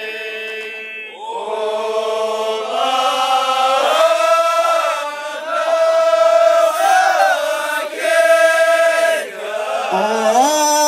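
A man's voice chanting Amazigh sung poetry (tandamt), drawing out long held notes in a handful of phrases with short breaks for breath between them.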